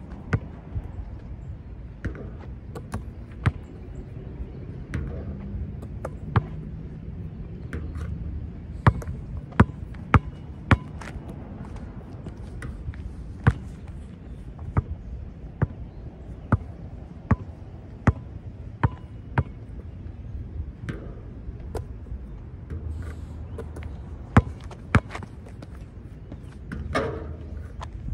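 A basketball repeatedly striking the backboard and rim and bouncing, a string of sharp, irregular thuds about once a second, during a short-shooting drill off the backboard.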